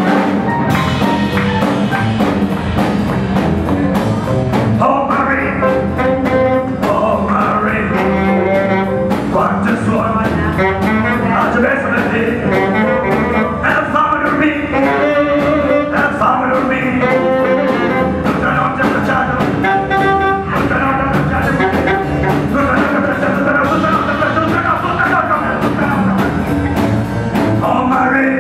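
Live swing band playing an instrumental break, a tenor saxophone leading the melody over upright bass, drums and keyboard.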